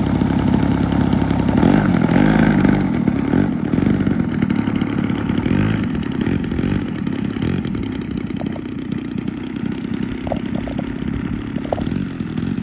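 Engine of a large radio-controlled aerobatic airplane running at low throttle, its propeller spinning, as the plane taxis across grass. It gets a little louder about two seconds in, then settles somewhat quieter as the plane moves away.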